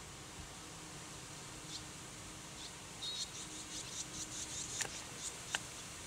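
Barn swallow fledglings begging for food with a rapid run of short, high chirps that starts about halfway through and lasts nearly three seconds, after a few scattered chirps. Two sharper calls stand out near the end.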